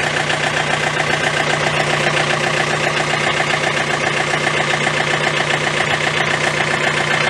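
Tractor engine idling steadily, running the hydraulics for the backhoe being unhooked.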